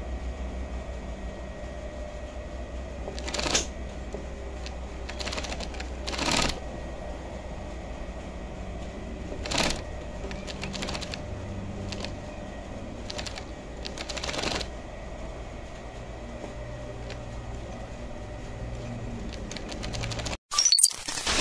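Union Special 35800 feed-off-the-arm chainstitch machine sewing a seam in denim: a steady motor hum under a fast, clattering stitch rhythm, with several louder swells along the way. Near the end it is cut off by a short, loud glitchy electronic sound effect.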